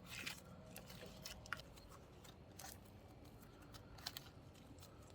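Faint soft clicks and crackles of clear slime being squished and stretched by hand, with a sharper click about a second and a half in and a couple more near four seconds.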